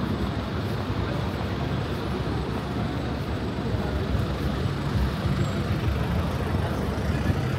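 City-street traffic noise: a steady low rumble of vehicle engines and road noise, with no distinct events.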